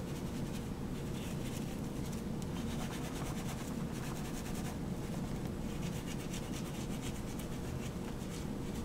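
Bristle side of a lathered surgical scrub brush-sponge scrubbing fingernails, cuticles and between the fingers in repeated scratchy strokes.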